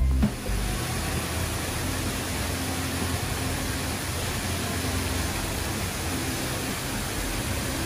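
Steady rush of water pouring in a thin curtain from an indoor fountain into a basin.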